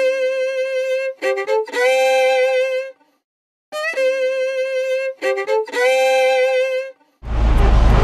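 Solo violin melody of held notes with vibrato, broken by a brief silence about three seconds in. Near the end the music stops and steady tractor engine noise heard inside the cab takes over.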